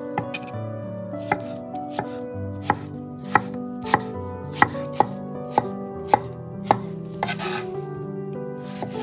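Kitchen knife chopping a cucumber on an end-grain wooden cutting board: a steady run of sharp knife strikes on the wood, about one every two-thirds of a second, with a brief rustling noise about seven seconds in.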